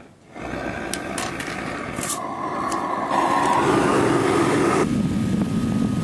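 Forced-air propane burner of a fire brick foundry furnace starting up and running, a steady rushing sound that comes on just after the start and grows louder about three seconds in, turning duller near five seconds in. A few sharp clicks sound in the first three seconds.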